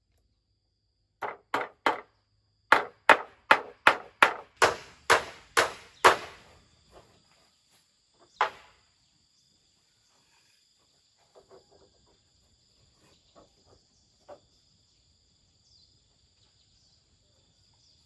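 Repeated sharp blows of a hand tool, about a dozen at two or three a second, then one more a couple of seconds later and a few light taps after. A steady high-pitched insect buzz sets in about six seconds in.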